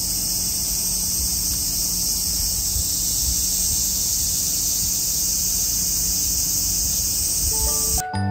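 A chorus of cicadas shrilling, a loud, steady, high-pitched drone with no breaks. It cuts off abruptly near the end as piano music begins.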